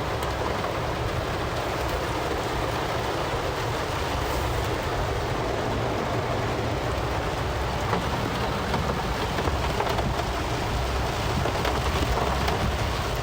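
Heavy rain pelting a car's roof and windscreen, heard from inside the cabin as a dense, steady hiss over a low rumble, growing slightly louder near the end.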